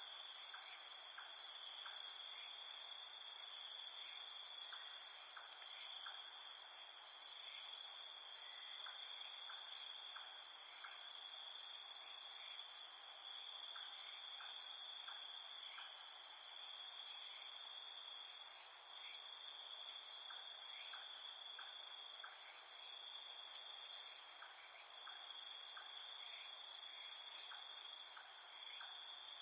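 Crickets and other insects trilling in a dense, unbroken high-pitched chorus. Fainter short chirps come in groups of three or four every few seconds.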